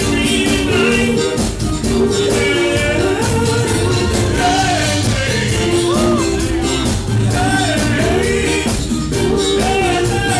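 Live cover band playing a dance-pop song, with a singer's melody over a steady beat.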